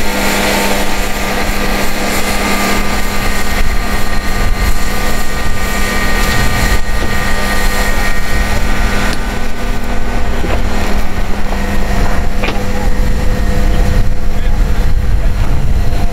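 A large engine running steadily at a constant speed, a continuous drone with a low rumble, with wind noise on the microphone.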